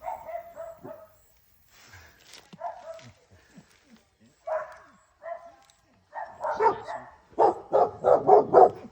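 Neighbourhood dogs barking back and forth, a dachshund and the dogs next door answering it, in short groups of barks, with a fast, loud run of barks over the last two seconds.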